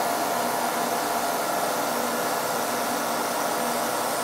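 Steady hiss of a NogaCool compressed-air mist coolant system spraying at the cutter, over the even hum of the milling machine's spindle turning the end mill.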